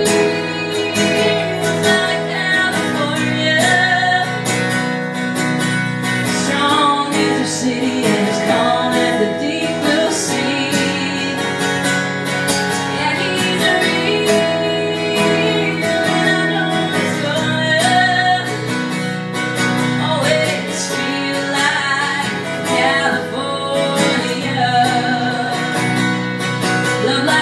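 A woman singing to her own strummed acoustic guitar, a solo song played live.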